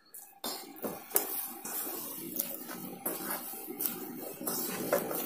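Hands mixing and kneading soft flour dough in a stainless steel bowl: irregular squishing and rubbing, with short knocks against the bowl.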